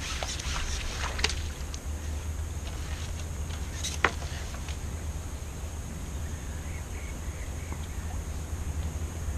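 A few sharp clicks and knocks as a landing net and its pole are drawn in and handled, with one louder knock about four seconds in, over a steady low rumble.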